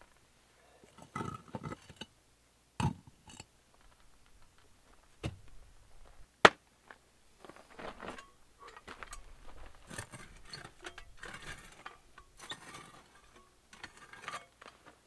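Loose volcanic rocks clacking and scraping as they are handled and stepped on, with crunching footfalls on the stones. A few sharp knocks come in the first half, the loudest about six and a half seconds in, then a longer run of irregular scraping and crunching.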